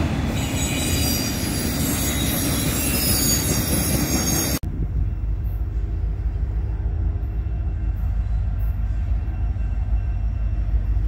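Freight train of autorack cars rolling past close by, wheels squealing high and clattering over the rails. About four and a half seconds in, a sudden cut to a low, steady rumble of distant Union Pacific diesel locomotives approaching.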